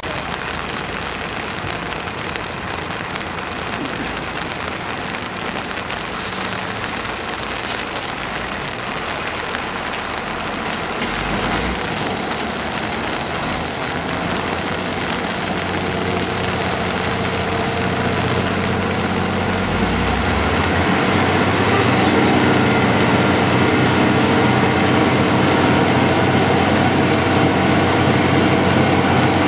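Tow truck engines running in floodwater, steady over a constant hiss, growing louder and heavier from about halfway through as the trucks work to pull a mobile home out.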